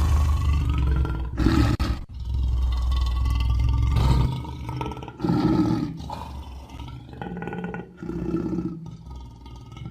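Lion roaring: long, loud, deep roars over the first few seconds, then shorter, quieter calls about a second apart.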